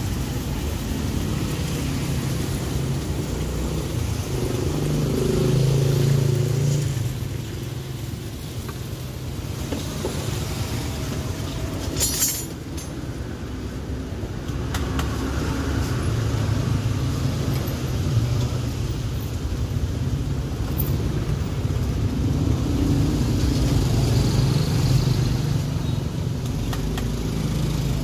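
Road traffic passing: vehicle engines swelling and fading as they go by over a steady low rumble, with one sharp clink about halfway through.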